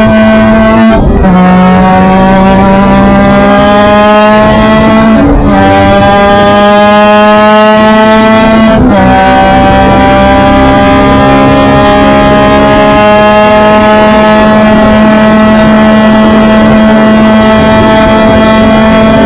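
Formula Mazda race car's rotary engine at full throttle, loud, heard onboard. Its pitch climbs and drops sharply at three quick upshifts, about a second, five and nine seconds in, then rises only slowly in top gear.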